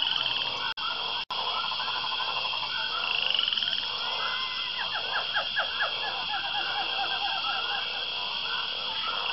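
A chorus of frogs croaking, with many short repeated calls and quick pulsed trills over a steady high hum. The sound drops out twice very briefly about a second in.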